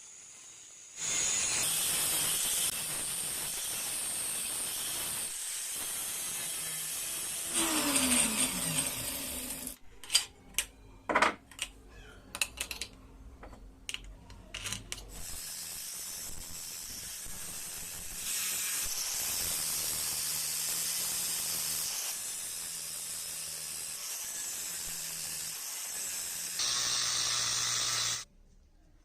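A power tool running with a steady abrasive hiss, working on metal. About eight seconds in, its motor winds down with a falling pitch. A run of sharp clicks and knocks follows before the steady hiss starts again; it stops abruptly near the end.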